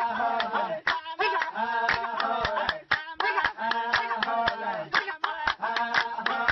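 A pair of Laysan albatrosses in their courtship dance: sharp, irregular bill clapping mixed with drawn-out, wavering calls.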